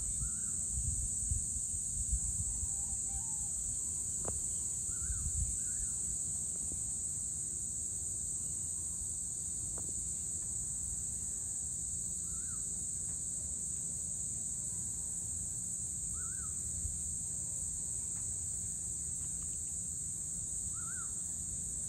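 Steady high-pitched insect chorus at dusk, with a bird giving short chirps every few seconds. Low rumbles come and go in the first few seconds.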